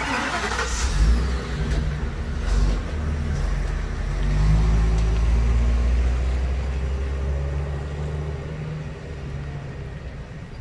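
Motor vehicle engine running, a low rumble that is loudest in the middle and eases off toward the end, with a short hiss right at the start.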